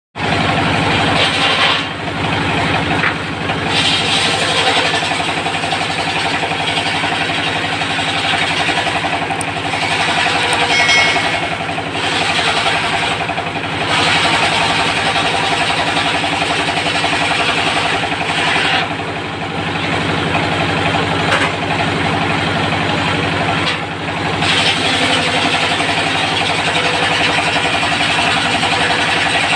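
Diesel engine driving a circular sawmill blade cutting teak wood: a steady engine drone with a hissing cutting noise over it that eases off briefly several times.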